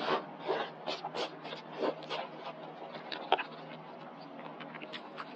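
Slurping and wet mouth sounds of eating a chili-oil wonton with chopsticks: several slurps in the first couple of seconds, then chewing with small smacking clicks. A single sharp click a little over three seconds in is the loudest moment.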